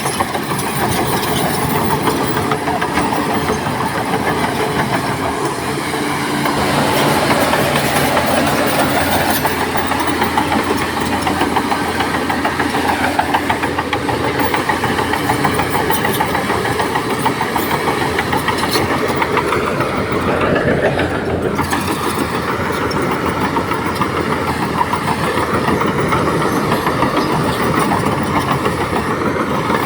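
Diesel engines of heavy earthmoving machinery running steadily, with a rattling, clanking clatter over the engine noise.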